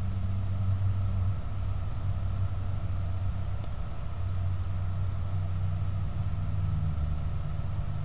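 Steady low mechanical hum with a faint, steady high whine above it. Its pitch shifts slightly about halfway through.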